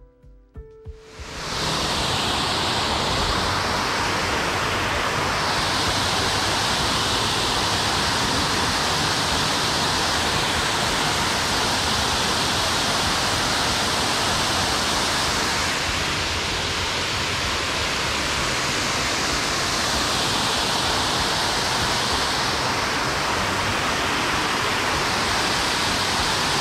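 Water pouring over a canal spillway's row of weirs into the pool below: a loud, steady rushing that comes up about a second and a half in.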